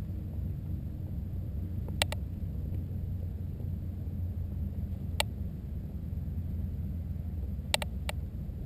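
Steady low rumble of wind on the camera's microphone, with a few faint sharp ticks: a double one about two seconds in, one in the middle and a couple near the end.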